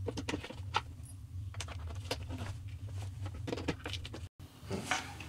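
Irregular small clicks and scrapes of a hand screwdriver turning fasteners that secure a shelf to the side panel of a flat-pack display cabinet, over a steady low hum. The sound breaks off briefly about four seconds in.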